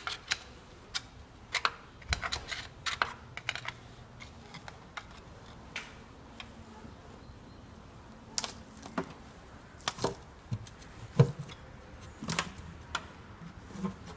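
Irregular metallic clicks and taps, about a dozen scattered through, the loudest near the end, from a screwdriver being worked into the sealant seam between a sheet-metal oil pan and the engine block to pry the pan off.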